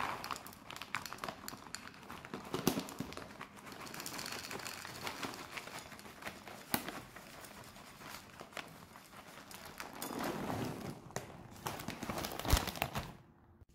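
Dry dog kibble poured from its bag into a plastic bowl, the pellets clattering and rattling, mixed with the crinkling and rustling of the food bag and plastic shopping bags, and a few sharper knocks.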